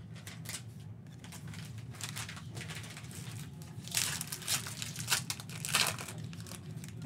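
Foil wrapper of a Panini basketball trading-card pack crinkling as it is torn open and the cards are slid out, the loudest crackles coming about four to six seconds in, over a low steady hum.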